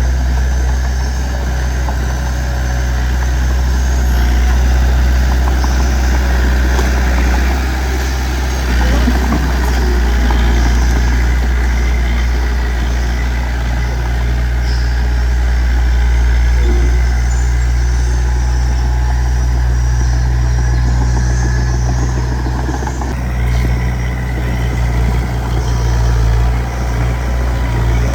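Heavy-equipment diesel engine running steadily with a deep low hum, dipping slightly in level a few times near the end.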